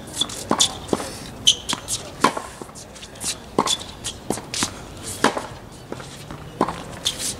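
Tennis rally on a hard court: sharp pops of a racquet striking the ball and the ball bouncing on the court, about one every second, unevenly spaced, with the player's shuffling footsteps between strokes.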